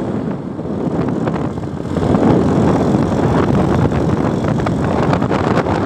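Wind rushing over the microphone of a moving motorcycle, with the motorcycle running under it; it grows louder about two seconds in.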